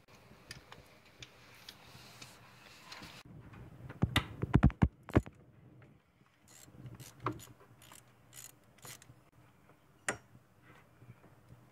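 Hand socket ratchet clicking in short runs as bolts beside the distributor of a 1997 Honda Civic's engine are loosened. A quick cluster of louder knocks comes a little past four seconds in.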